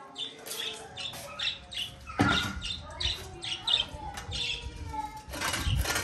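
A flock of budgerigars chattering with many short, high chirps and squawks. A sharp knock comes about two seconds in, and a rough scrape just before the end as a wooden board is pushed across the concrete floor of the enclosure.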